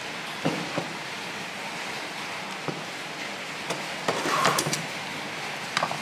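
Light plastic clicks and taps as a hand-made PVC socket box is handled and its lid fitted, with a quick flurry of clicks about four to five seconds in, over a steady background hiss.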